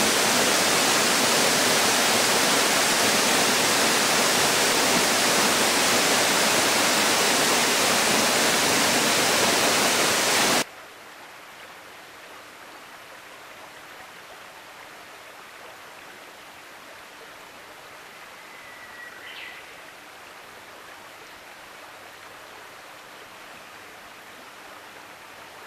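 Waterfall's steady rush of falling water, loud at first, then cutting suddenly about ten seconds in to a much quieter, steady hiss of water. One short high chirp comes about nineteen seconds in.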